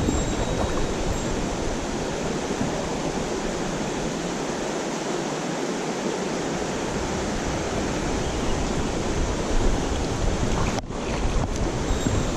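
Mountain stream water rushing steadily over rocks, a continuous loud hiss, with a brief dropout about eleven seconds in.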